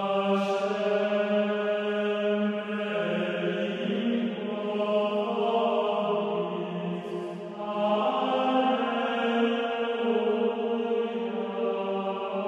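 Background music of slow vocal chanting, long held notes that move to a new pitch every few seconds.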